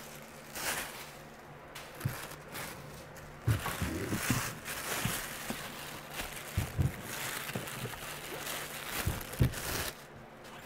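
Plastic packaging rustling and scattered light knocks as metal heat-press attachments are handled on a table.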